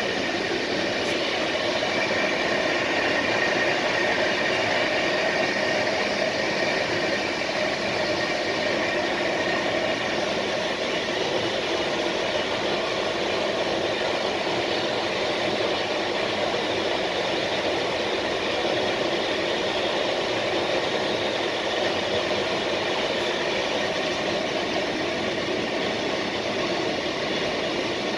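Steady running noise of an intercity passenger train at speed, heard from inside the rear coach: an even rumble and hiss of wheels on the rails, with no rhythmic clicking of rail joints. A faint high whine fades out about ten seconds in.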